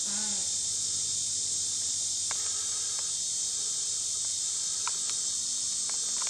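Steady, dense high-pitched drone of a chorus of insects such as crickets, with a few faint clicks.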